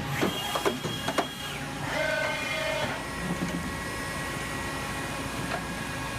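1996 Enshu 550V CNC vertical machining center starting a program of axis moves and tool changes. A few sharp clicks and a steady high whine come in the first second and a half, another brief whine comes about two seconds in, and then the machine runs with a steady hum.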